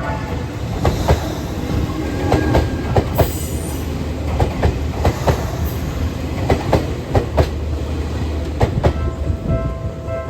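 Hauled train of electric railcars rolling past with a steady rumble, its wheels clacking over rail joints in quick pairs as each bogie's axles cross.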